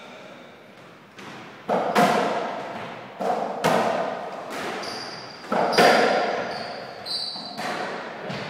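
Softraquet rally: a ball struck by rackets and hitting the wall, a series of sharp impacts, several in quick pairs, each ringing on in the long echo of a large hall. A few short high squeaks come in the middle.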